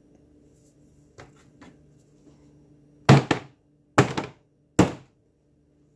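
Rubber mallet striking a canvas covered in wet acrylic paint: three dull thunks a little under a second apart in the second half, the first the loudest, after a couple of faint light knocks.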